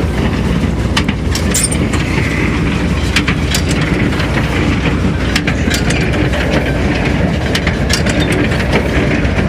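Tractor engine running steadily while a hay baler works, with irregular clicking and clanking from the baler's mechanism over the low running noise.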